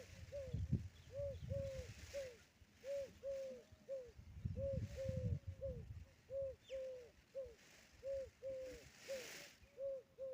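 A bird calling in short, low, rise-and-fall notes, mostly in quick runs of three, each run repeated about every second and a half. Patches of low rumbling noise sit underneath.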